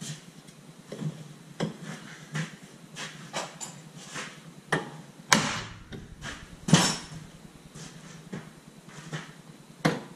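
About a dozen irregular metal knocks and clanks from work on a Ford Five Hundred's front lower control arm and steering knuckle. Two sharp, ringing clanks about halfway through are the loudest.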